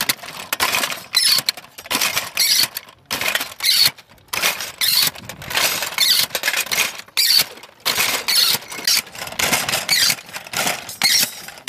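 23 mm cartridges for a ZU-23 gun being pressed into a steel link ammunition belt with a hand-lever belt-loading tool: repeated, irregular metallic clanks, scrapes and squeaks of cartridge cases and links.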